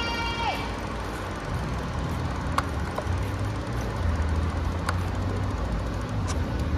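City street traffic noise with a vehicle engine rumbling low, plus a few sharp clicks. A high held tone dies away with a drop in pitch about half a second in.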